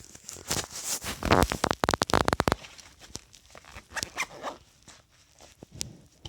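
Small hard pills rattling in a small pill holder as it is shaken: a quick run of sharp clicks lasting about a second, with scattered handling knocks before and after.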